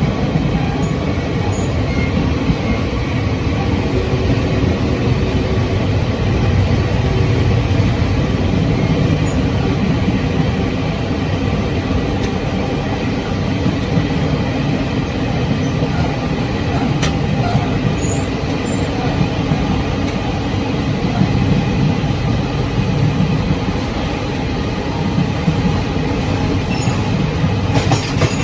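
Running noise in the gangway between two carriages of a Taiwan Railway Chu-Kuang Express train under way: a steady, loud rumble of the wheels on the track.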